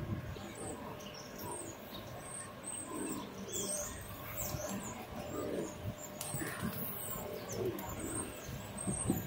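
Feral pigeons cooing in soft low calls now and then, with faint high chirps of small birds over a steady low city hum.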